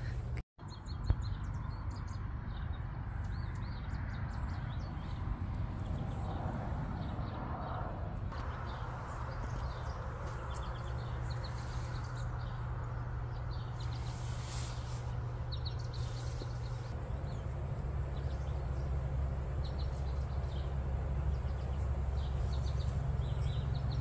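Small birds chirping now and then, over a low, steady rumble.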